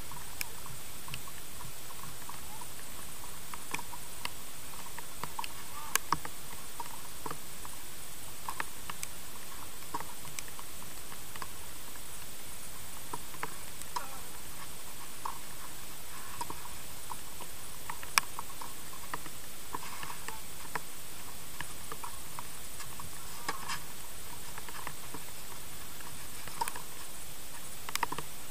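Tennis balls struck by rackets and bouncing on a clay court during a rally, heard as scattered short pops and ticks over a steady camera hiss, with one sharp hit about two-thirds of the way through.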